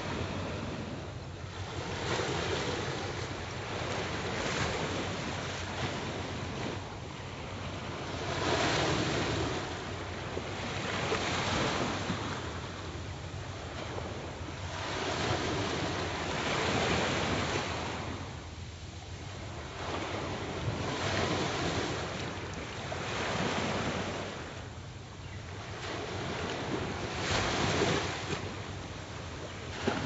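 Small river waves lapping onto a sandy shore, each swell washing in every two to three seconds, with wind rumbling on the microphone.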